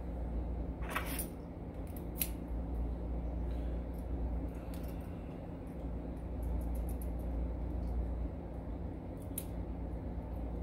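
Small metal parts of an Evva 3KS lock clicking as the brass plug and a thin steel tool are handled during reassembly. Sharp clicks come about a second in, again about two seconds in and near the end, with fainter ticks between, over a steady low hum.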